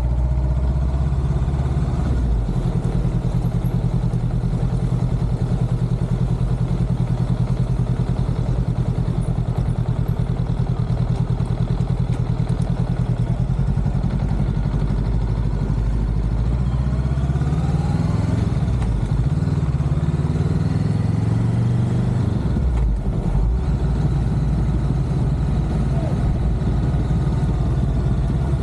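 Motorcycle engine running while the bike is ridden. Its pitch rises from about two-thirds of the way in as it speeds up, then falls back a few seconds later.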